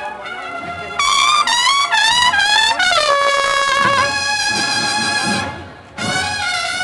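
Procession brass band playing a march. A loud brass phrase with sliding notes comes in about a second in, breaks off briefly near the end and then resumes.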